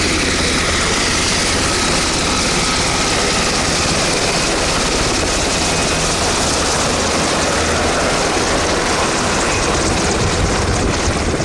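Sikorsky S-70C helicopter running steadily: continuous loud rotor and turbine engine noise with a low rumble underneath.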